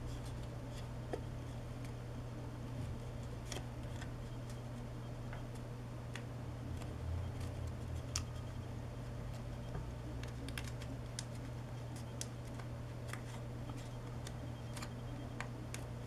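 Paper being folded and pressed by fingers on a small origami model: scattered light crinkles and ticks over a steady low hum.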